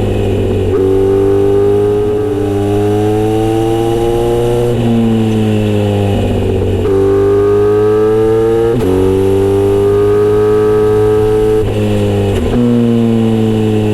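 Kawasaki Z900RS inline-four running through a Misty Kintaro short aftermarket muffler while riding. The engine note climbs slowly, then drops at each of several gear changes.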